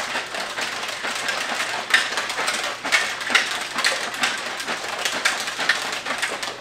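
Plastic shaker bottle of liquid drink mix shaken hard: sloshing and rattling strokes, about two to three a second, stopping at the end.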